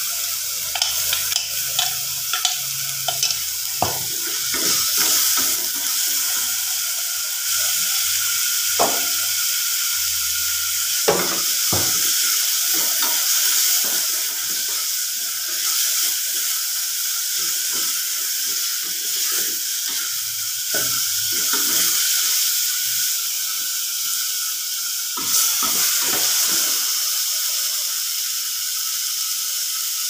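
Onions, tomatoes and whole spices sizzling steadily in hot oil in a pressure cooker pot, with a wooden spoon knocking and scraping against the pot as the mixture is stirred, the knocks thinning out near the end.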